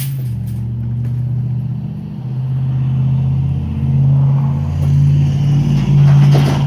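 Heavy truck's diesel engine running close by, a low steady drone that grows louder and rises slightly in pitch from about four seconds in.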